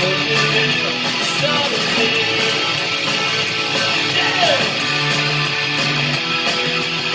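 Electric guitar strummed with steady picking, playing along with a rock band recording, with drums keeping an even beat under the chords.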